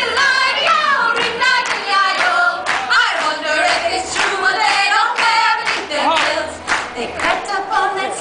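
Several women singing a comic folk song in harmony, unaccompanied, with hand claps along the way.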